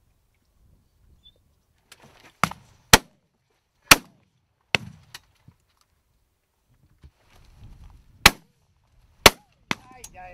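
Shotgun shots fired at birds flying overhead. Four sharp shots come within about two and a half seconds, starting about two seconds in. Near the end come three more, the last one fainter.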